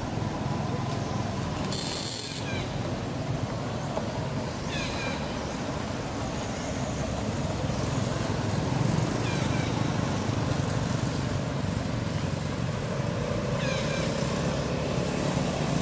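A steady low engine rumble, with a few short, high, falling chirps over it, the loudest about two seconds in.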